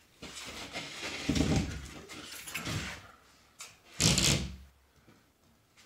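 A large OSB sheet scraping and rubbing as it is shifted against a wooden stud frame, with a heavier thump about a second and a half in and a louder knock about four seconds in.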